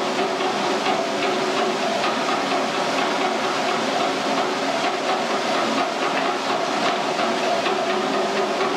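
Steady rushing hiss with a low, even hum beneath it and a few faint clicks.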